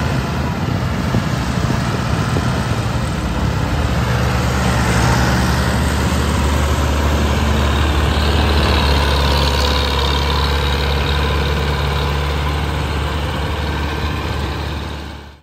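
Diesel farm tractors hauling heavily loaded sugarcane trolleys drive past, their engines running steadily under load. A high whine swells about eight seconds in as one passes close, and the sound fades out at the very end.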